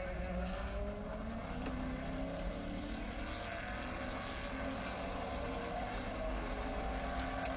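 Race car engines from a Le Mans test session, heard as a recording playing in the background: a steady engine note whose pitch glides up and down.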